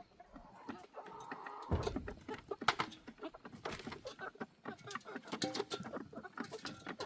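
Chickens clucking, with many short clicks throughout and a low thump about two seconds in.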